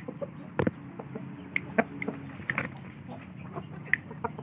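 Chickens clucking in short, scattered notes, with a sharp knock about half a second in, over a steady low hum.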